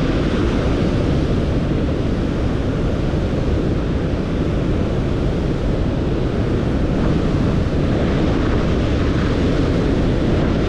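Burgess Falls thundering close by: a loud, steady rush of falling water, heavy in the low end, with spray and wind buffeting the microphone.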